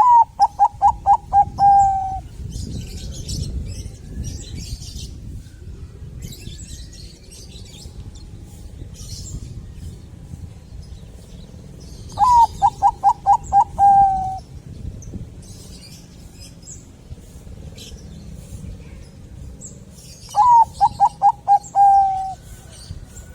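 Bangkok-strain zebra dove (perkutut) cooing: three song phrases, each a quick run of about six short notes ending in one longer held note. Faint chirping of small birds and a low rumble run underneath.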